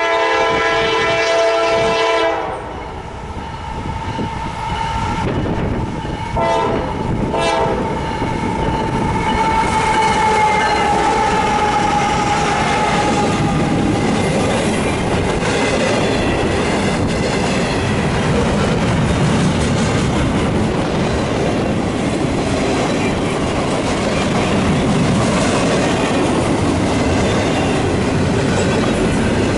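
Freight train horn sounding a blast of about two seconds, then a shorter blast. After that a CSX double-stack container train, led by GE ES44AC and ES44AH diesel locomotives, rolls past with steady wheel rumble and clickety-clack over the rail joints.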